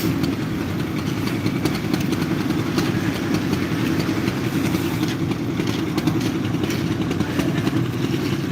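Engine of the concrete-pouring machinery running steadily, a continuous low hum with faint scattered ticks.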